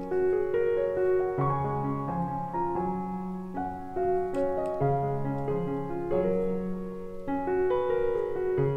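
Background piano music: a gentle melody of single notes over lower held chords, moving at an easy pace.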